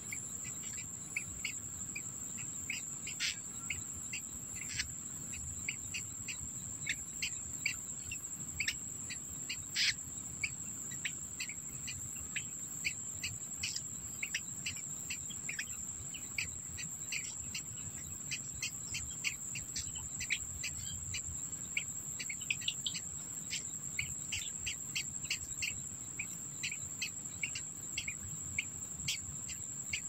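Steady high-pitched insect drone, cricket-like, with many short sharp chirps or ticks over it, several a second.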